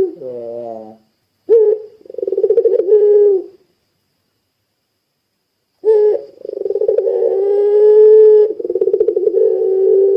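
Puter pelung dove cooing: a falling note, then a short rolling coo. After a pause of about two seconds comes one long, drawn-out coo of about four seconds with a rough, rolling trill.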